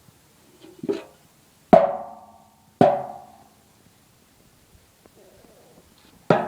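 Wooden percussion being struck: five separate knocks, each ringing with a short pitched tone that dies away within about a second. The first knock is softer, and the last two come close together near the end.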